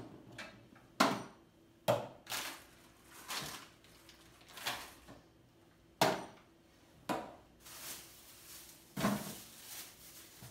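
Small objects being handled and set down on a wooden tabletop: several sharp knocks, with softer rustling and shuffling between them.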